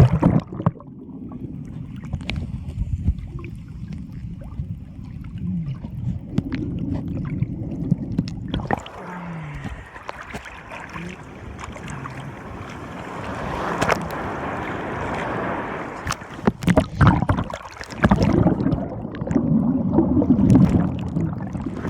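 Muffled sloshing and rumbling of ocean surf heard through a phone's waterproof case held in the water, with knocks and rubbing against the case. It surges louder in the last third.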